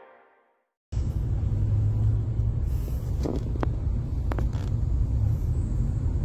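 The intro music fades out, and after a short silence comes the steady low rumble of a car heard from inside its cabin, with a few faint clicks near the middle.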